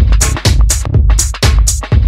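Electronic dance music with a steady kick-drum beat, about two beats a second, and crisp high percussion between the beats.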